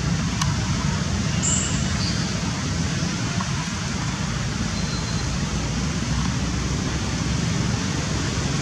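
Steady low rumble with an even hiss over it, and a faint short high chirp about one and a half seconds in.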